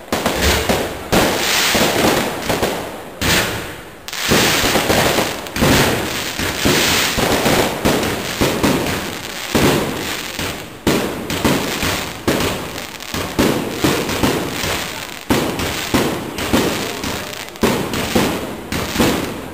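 Aerial fireworks display: shells bursting overhead in a continuous barrage, one or two loud bangs a second, each followed by a fading tail.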